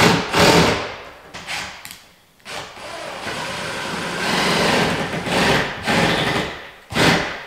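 Power drill driving screws into a countertop being glued and screwed together: a short run of the motor at the start, a longer steady run of about four seconds, and another short burst near the end.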